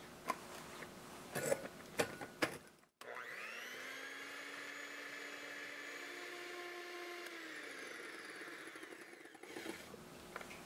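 Electric hand mixer whisking egg whites and sugar into meringue in a glass bowl. Its motor whine rises in pitch as it starts and drops away as it slows near the end. Before it starts come a few sharp clicks and taps.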